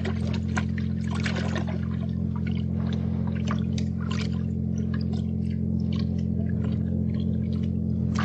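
A steady low hum, with water splashing and dripping irregularly over it.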